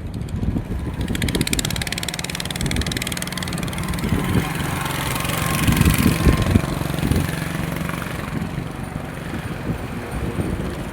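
A motor vehicle's engine passes close by, with a steady low hum that swells to its loudest about six seconds in and then fades, over wind and road hiss.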